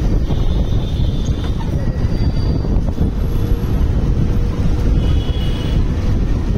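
Wind buffeting the microphone over the steady running of a Bajaj Pulsar UG3 motorcycle's engine while riding. A couple of faint high-pitched tones come through briefly, near the start and about five seconds in.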